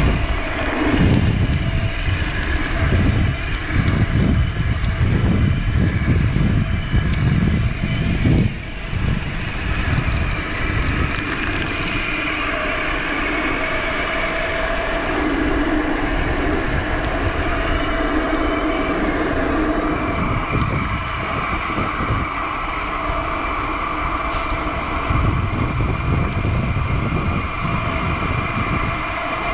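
Wind buffeting the microphone of a camera on a mountain bike speeding downhill on asphalt, a gusty rumble that swells and eases, over a steady hum of the tyres rolling on the road.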